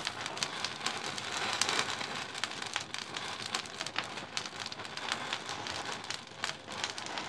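A sphere of packed safety matches burning, crackling with many sharp pops over a steady hiss of flame as the flame dies down.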